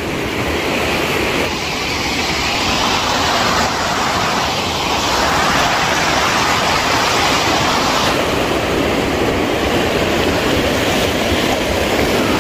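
Steady rush of white water cascading over rocks at the top of Steavenson Falls, growing a little louder over the first few seconds and then holding steady.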